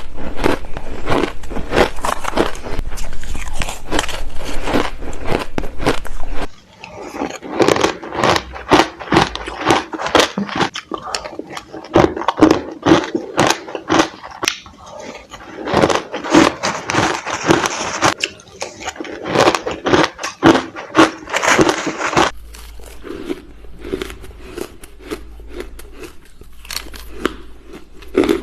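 Crushed ice being bitten and chewed, a dense, irregular run of crunches and cracks.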